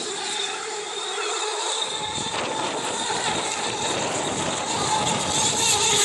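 Electric radio-controlled racing boats running at speed: a steady high-pitched whine of motors and propellers over a hiss, getting louder near the end as one passes close.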